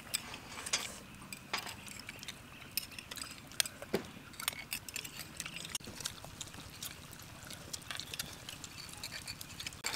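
Spoons clicking and tapping against small ceramic bowls as several people eat, in irregular light clicks.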